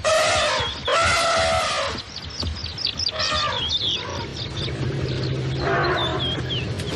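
An Asian elephant trumpeting: two loud, high, held calls in quick succession at the start, then shorter calls around the middle and near the end. Birds chirp throughout, and a low steady hum runs through the second half.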